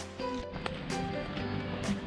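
Background music: held melodic notes with a beat struck about once a second.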